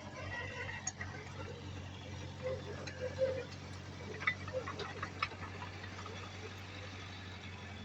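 A heavy earthmoving machine's diesel engine running steadily as a low hum, with scattered light clicks and knocks over it, most of them in the middle of the stretch.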